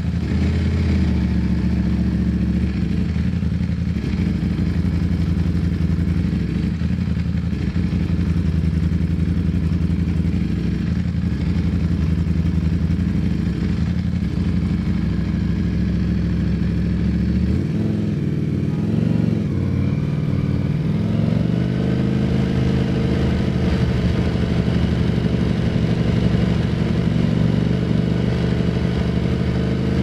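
Ducati Streetfighter V4S's V4 engine running at low revs while cruising. About two-thirds of the way in the pitch dips and rises a couple of times, then the revs climb steadily to the end.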